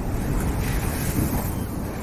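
Sea surf: a wave breaking and washing up with a rising hiss about half a second in that eases off near the end, over a low rumble of wind on the microphone.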